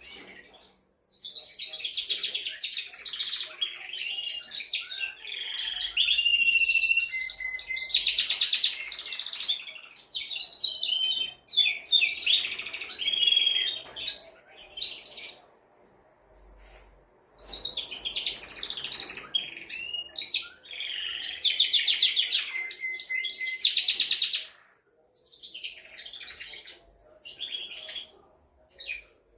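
Male canary singing. It gives long bouts of fast trills and rolls mixed with a few held whistled notes, pauses for about three seconds in the middle, then sings another long bout and shorter broken phrases near the end.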